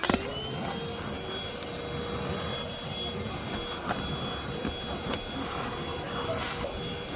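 Vacuum cleaner switched on with a click: its motor whine rises quickly and settles into a steady whine over the rush of air.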